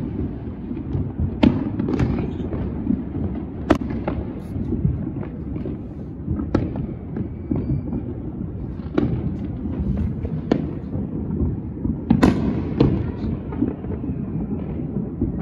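Many fireworks going off all around: a constant low rumble of distant bangs, with sharp nearer cracks every second or so, the loudest about four seconds in and again near the end.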